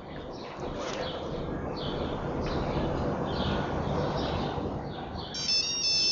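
Outdoor street background, a steady rush of noise that swells after about a second, with birds chirping over it. Near the end a mobile phone starts ringing with a high electronic melody of stepped tones.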